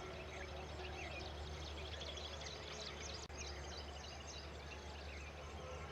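A flock of baya weavers chirping and chattering together, many short overlapping calls with a fast buzzy trill about two seconds in and again near four seconds, over a steady low rumble.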